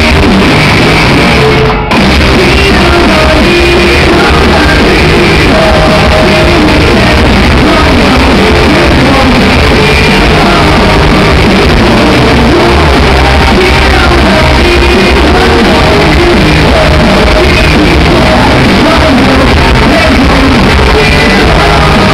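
A rock band playing live, loud and without letup: electric bass, guitar and drums under a singer's sung and shouted vocals, in a hall. There is a split-second drop in the sound about two seconds in.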